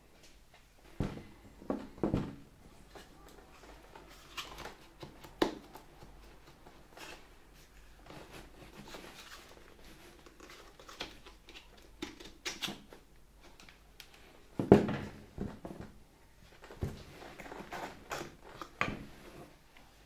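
Handling noise from an old Hoover Dustette 2614B hand vacuum being taken apart while switched off: scattered clicks and knocks of its plastic body as the front section with the cloth dust bag is twisted off. The loudest knock comes about fifteen seconds in.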